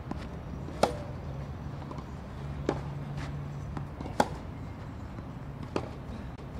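Tennis ball hit with rackets in a groundstroke rally: four sharp hits, about one and a half to two seconds apart, with fainter knocks between.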